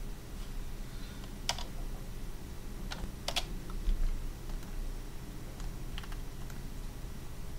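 A few separate computer keystrokes and mouse clicks, about four or five short sharp clicks spread apart, over a steady low electrical hum.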